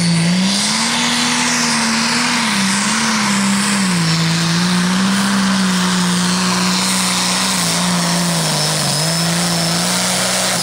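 Turbocharged diesel engine of an International 1466 pulling tractor running flat out under load while it drags the sled, with a faint high whine over a dense hiss. Its note climbs about a second in, sags around four seconds, and wavers near the end as the load changes.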